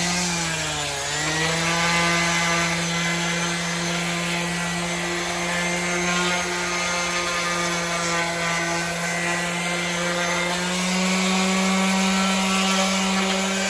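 Corded electric sander with a round orange pad running steadily against a chrome-plated wheel rim, scuffing the damaged chrome so adhesive and primer will grip. The motor hum sags briefly about a second in as it is pressed to the metal, and rises slightly near the end.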